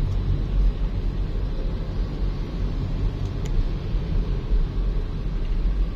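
Car running along a road, heard from inside the cabin: a steady low rumble of engine and tyre noise.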